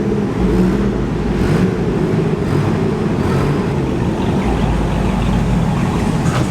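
Car engines running steadily with a low exhaust note.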